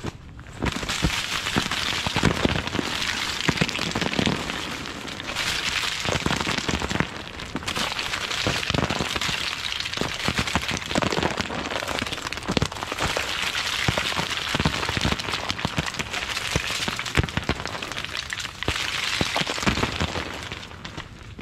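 Dense crackling and pattering of ice, like rain: ice shedding from ice-coated trees and shrubs, mixed with crunching footsteps on icy ground.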